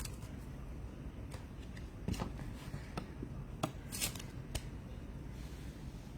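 Baseball trading cards being handled by hand, with scattered light clicks and rustles as cards are flipped and slid against one another.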